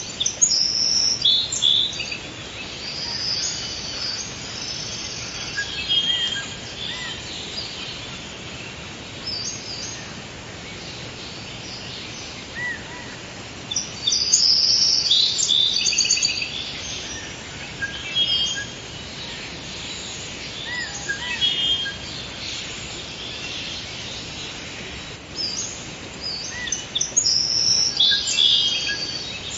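Forest ambience: several songbirds chirping and trilling in bursts, loudest in clusters near the start, around the middle and near the end, over a steady background hiss.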